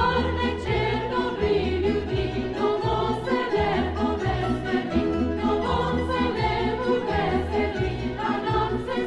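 Background music with a choir singing over a steady low bass.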